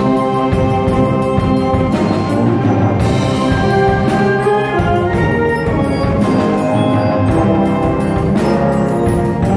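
High school wind ensemble playing: held brass and woodwind chords over percussion, with repeated struck strokes through the first few seconds and again near the end.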